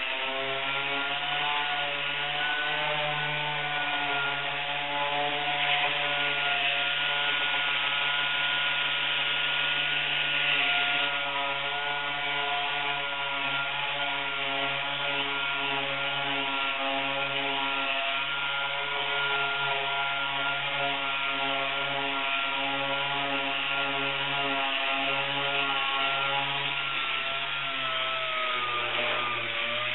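Air-powered dual-action sander wet-sanding gel coat with 800-grit paper: a steady whine over a hiss, its pitch dipping briefly near the end.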